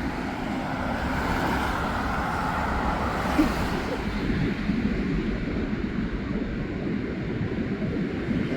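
Steady road traffic noise from vehicles driving across the Humber Bridge, a continuous rumble with no single event standing out.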